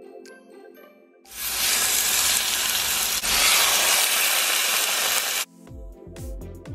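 Raw, deboned, skin-on chicken thighs sizzling loudly in hot oil in an enamel-lined pot as they are laid in, starting about a second in and cutting off suddenly about five and a half seconds in.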